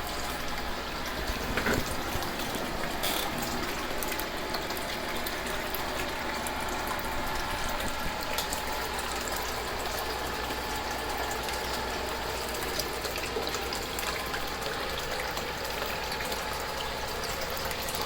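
Water circulating through an RDWC waterfall hydroponics system: a steady rush of water pouring and splashing as the pump runs.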